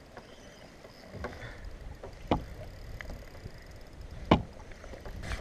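Choppy water lapping against a kayak with a low wind rumble, broken by a few sharp clicks, the loudest about four seconds in.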